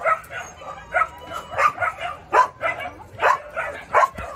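Young dogs barking and yipping excitedly in a quick run of short, sharp calls, about two a second.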